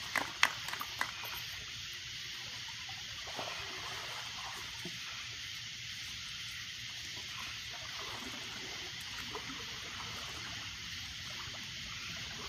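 Swimming-pool water trickling and lapping steadily, with a few sharp claps in the first second.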